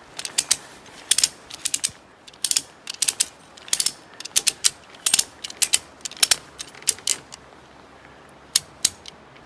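Slackline ratchet being cranked to tension the line that holds up a tarp. Each throw of the handle gives a short run of sharp metal clicks, repeated about twice a second. The clicks pause near the end, then two more follow.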